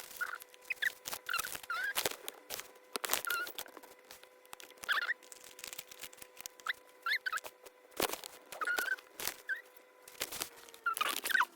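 Close handling of small plastic pieces and packaging: many quick clicks and crinkles with short squeaks, over a faint steady hum.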